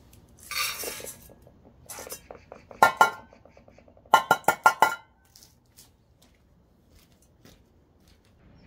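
Dry cat food rattling out of a metal scoop into a bowl, then the scoop tapped against the bowl's rim in sharp ringing clinks: a few single taps, then a quick run of about six. The tapping is a call that tells the cats it is feeding time.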